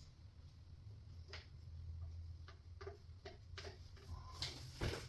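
Irregular light clicks and ticks of a hand screwdriver turning screws into the cabinet's panels, with a louder knock near the end.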